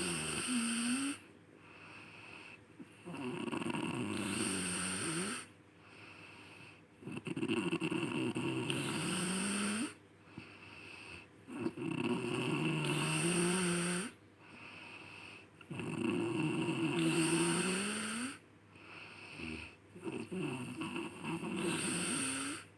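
A sleeping person snoring: about six long, loud snores, roughly one every four seconds, each with a pitch that slides up and down.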